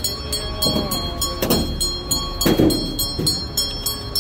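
A large fire of burning joss paper and paper offerings, crackling quickly and evenly over a low rumble. Short voices from people nearby break in a few times.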